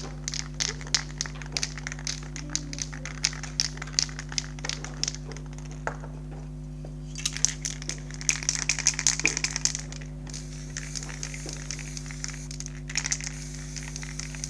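Spray-paint aerosol can hissing in short bursts, densest about seven to ten seconds in, amid crackling, crinkling clicks, over a steady low hum.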